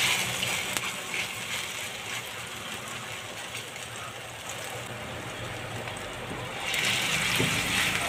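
Tortang talong mixture of mashed eggplant and egg frying in hot cooking oil in a pan, a steady sizzle. It is loudest at the start as the mixture goes in, settles, and swells again near the end as a second spoonful is dropped into the oil.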